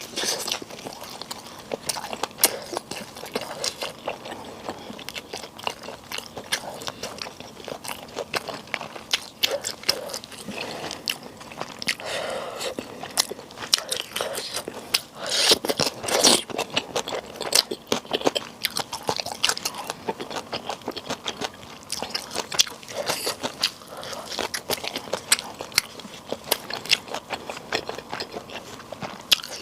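A person chewing and biting food close to the microphone, with crunching and a dense run of small wet mouth clicks; louder bites come around the middle.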